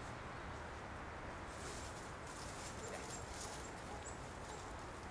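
Dogs shifting about on dry fallen leaves, giving a light rustle over steady outdoor background noise, with a few faint high bird chirps.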